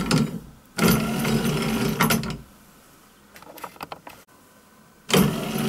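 An old Volvo windscreen-wiper motor turning a lathe's lead screw through gear wheels, running, stopping and starting again as its forward/reverse switch is flipped: it runs in short stretches of a second or two with quiet gaps between, and a few faint clicks in the longer gap.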